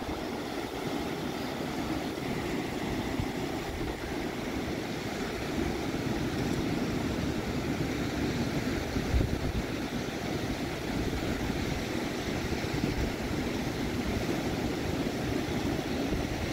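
Sea surf breaking and washing over rocks along the shore: a steady rushing of waves with a low rumble underneath.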